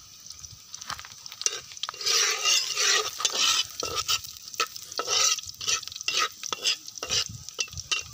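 Chopped garlic sizzling in oil in a metal frying pan while a spatula stirs and scrapes it against the pan in repeated strokes, busiest from about two to three and a half seconds in.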